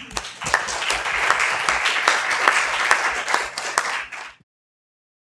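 Audience applauding, a dense patter of many hands clapping that cuts off suddenly about four seconds in.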